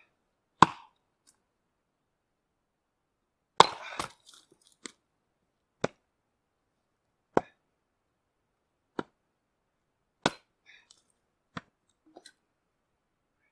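Axe blows splitting firewood rounds on a wooden chopping block: sharp knocks, one every second or two. The loudest comes about half a second in, and a longer cracking clatter about three and a half seconds in is a round splitting apart.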